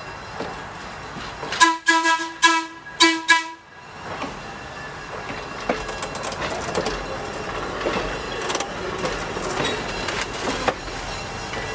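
Air horn of a GE 65-ton diesel locomotive sounding four quick blasts about two seconds in, then the train rolling along with wheels clicking over the rail joints.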